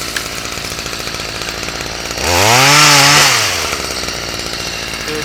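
Two-stroke chainsaw idling, its throttle blipped once about two seconds in: the engine revs up briefly and falls back to idle.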